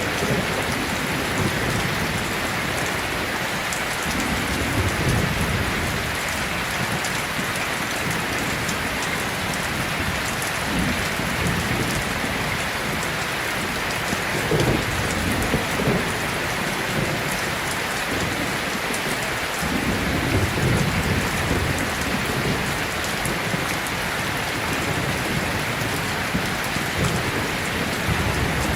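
Steady heavy rainfall, an even hiss of many drops, with a few brief low rumbles swelling up about a sixth, a half and two-thirds of the way through.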